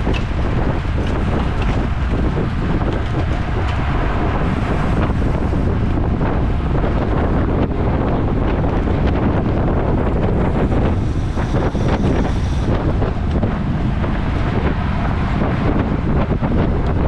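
Wind rushing over the microphone of a camera moving at cycling speed: a loud, steady rush.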